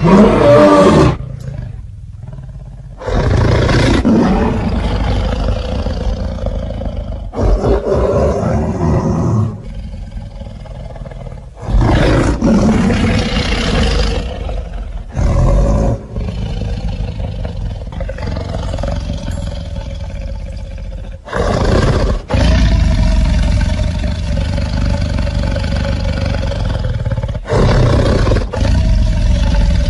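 Lion roaring and growling: a series of deep roars, each lasting a few seconds, with short breaks between them.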